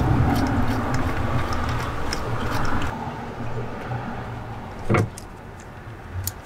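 Mounting bolts being turned in by hand on an EGR valve: scattered small metal clicks and handling noise, with one sharper knock about five seconds in. A steady low hum lies behind them and drops away about three seconds in.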